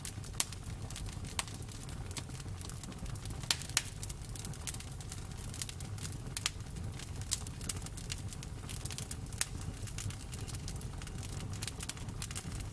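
Campfire crackling: a steady run of irregular sharp pops and snaps from burning wood over a low steady rumble, with a few louder pops near the start and about three and a half seconds in.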